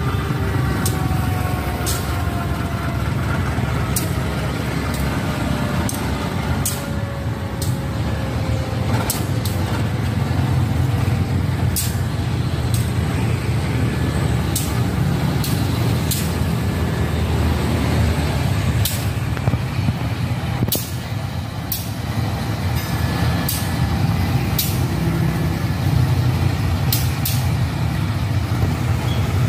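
CC 201 diesel-electric locomotive running slowly past with its engine rumbling steadily, while it shunts a short train of ballast and freight wagons. Sharp clicks come at scattered moments, and a tone falls slowly in pitch over the first several seconds.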